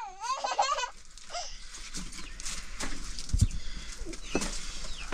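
A short domestic animal call, wavering up and down in pitch, in the first second, followed by faint scattered sounds and a couple of soft low thumps.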